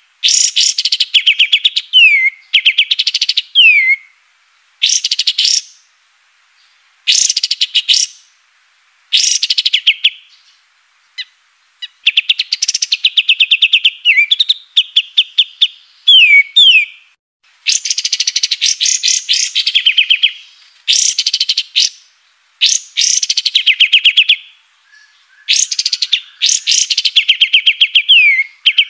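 Kapas tembak songbird singing clear, loud phrases of rapid, high repeated notes. The phrases come one after another with short pauses, about a dozen of them, and several end in a quick downward slur.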